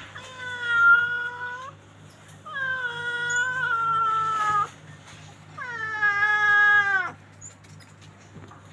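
An animal calls three times, each call a long, steady-pitched cry of about one and a half to two seconds, with short pauses between.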